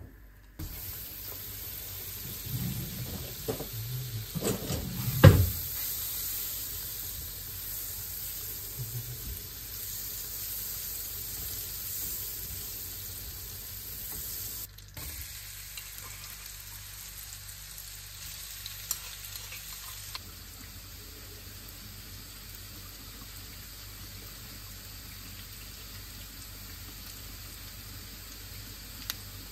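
Butter sizzling in a nonstick frying pan while a wooden spatula stirs it, with a few loud knocks a few seconds in. Later, chopped aromatics fry in the butter with a steady, quieter sizzle.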